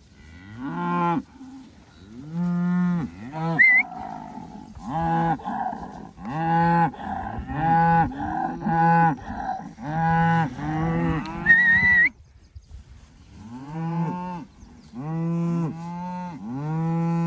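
A herd of Angus cattle mooing over and over, a dozen or so low drawn-out moos from several animals that overlap one another, with a short lull about two-thirds of the way through. Two brief high-pitched rising squeals cut in, one near the start and a louder one just before the lull.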